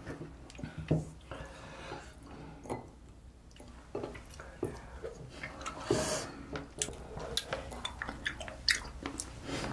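Close-up eating sounds: chewing of slices of boiled octopus, with scattered light clicks of chopsticks against the plate and dishes, one a little louder about six seconds in.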